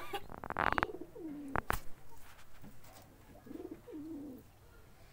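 Domestic pigeons cooing in low, gliding coos near the start and again near the end. A brief rapid clatter about half a second in is the loudest sound, followed by two sharp clicks about a second and a half in.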